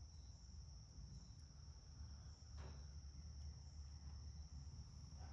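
Near silence: steady high-pitched chirring of crickets over a low hum, with one faint short sound about two and a half seconds in.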